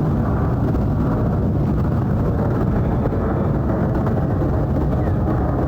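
Jet airliner climbing out overhead: steady, low engine noise with no rise or fall.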